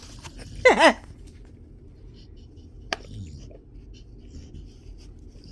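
An American bully dog gives a short two-part whine that falls in pitch, about a second in. Later there is a single sharp click.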